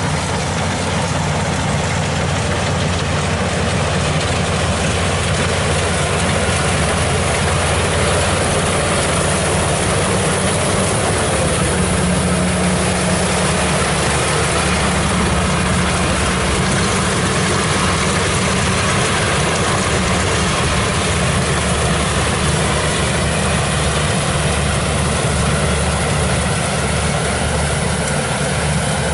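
Diesel engines of rice-harvesting machines running steadily at a constant speed: first a small engine-driven paddy sled hauling rice across the field, then a Kubota combine harvester cutting rice.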